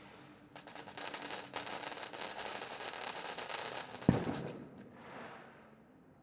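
Fireworks going off: a dense run of crackling pops for about four seconds, with one loud bang about four seconds in, followed by a hiss that swells and fades.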